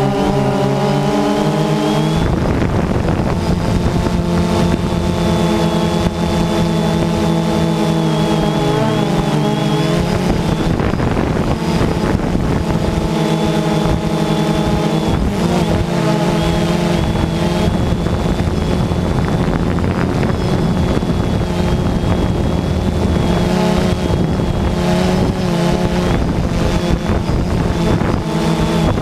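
DJI Phantom 2 quadcopter's motors and propellers humming steadily in flight, with a thin high whine above, the pitch wavering every so often as the motors speed up and slow down.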